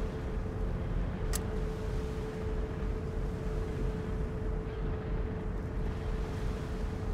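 Steady low rumble of background ambience with a constant faint hum, and one sharp click a little over a second in.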